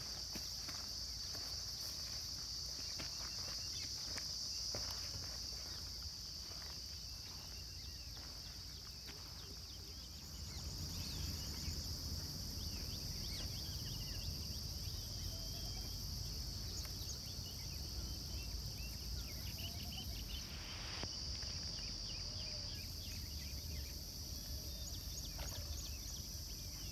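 Insects in a steady, high-pitched chorus, an unbroken buzz.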